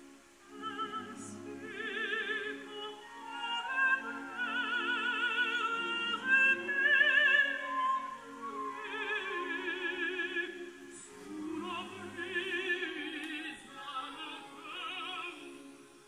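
Recorded operatic singing with wide vibrato over classical accompaniment, played back through Tannoy Cheviot loudspeakers and heard in the room.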